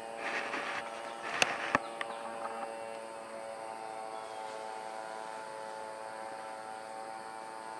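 A steady, many-toned humming drone, with a short rustle in the first second and two sharp clicks about a second and a half in.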